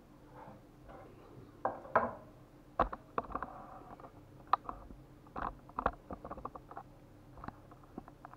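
Hand gathering diced raw calf heart on a wooden cutting board: scattered soft taps, clicks and short scrapes of meat pieces and fingers against the board.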